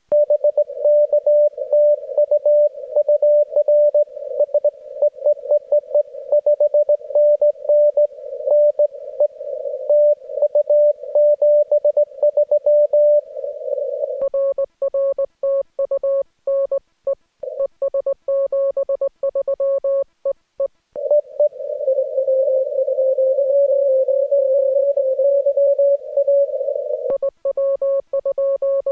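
Morse code (CW) from an amateur radio transceiver: a single mid-pitched tone keyed on and off in dots and dashes. In some stretches the keyed tone is clean; in others it sits in a hiss of band noise.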